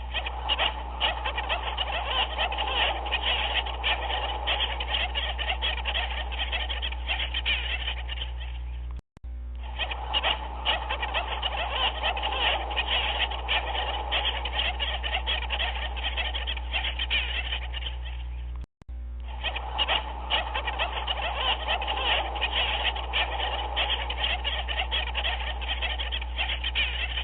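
A dense chorus of many animal calls overlapping, over a steady low hum. It is a repeating loop that cuts out for an instant about 9 seconds in and again about 19 seconds in.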